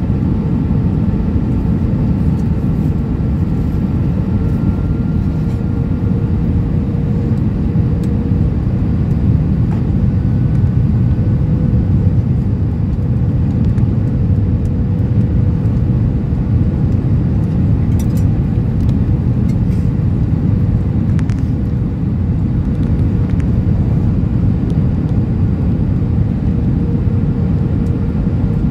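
Steady cabin noise inside an Airbus A320-232 on approach: a low, even rumble of airflow and its IAE V2500 engines, with a faint steady hum running through it.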